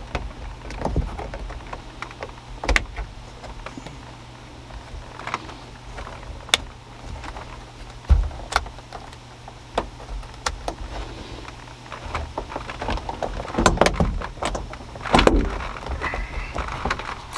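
Plastic clicks, taps and knocks of a Toyota FJ Cruiser's dome light housing and lens being handled and pressed back into the headliner, with a denser run of louder knocks and snaps near the end as it is pushed home.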